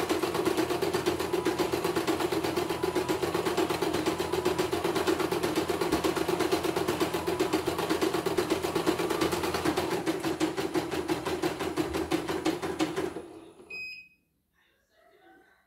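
CNY E900 portable embroidery machine stitching, a rapid steady rhythm of needle strokes, which stops suddenly about 13 seconds in, followed by a short electronic beep. The stop and beep are the machine's thread-break alarm: the thread has snapped.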